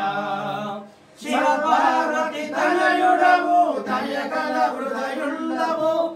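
Singing of a Telugu devotional mangala harathi hymn to Vinayaka (Ganesha), in long held notes with a brief breath pause about a second in.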